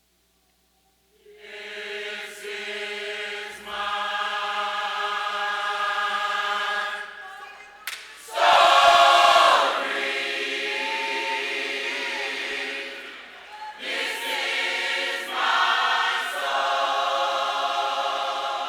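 Choir singing long sustained chords in phrases, coming in about a second in and swelling loudest around the middle.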